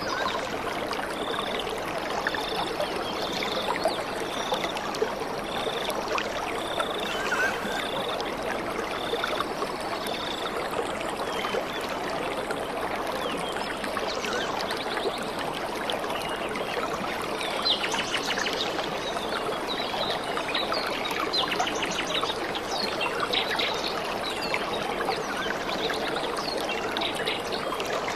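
Running water of a stream, a steady trickling flow. A short high note repeats about once a second for the first ten seconds or so.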